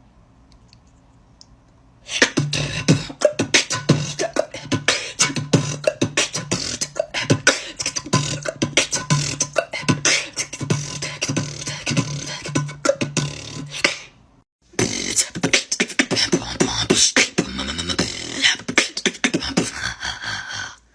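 Beatboxing: rapid vocal kick, snare and hi-hat sounds over a held low hummed bass, starting about two seconds in and breaking off briefly about two-thirds of the way through before resuming.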